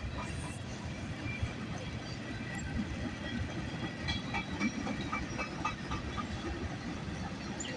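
CN freight train rolling past on the rails: a steady rumble with scattered light clicks.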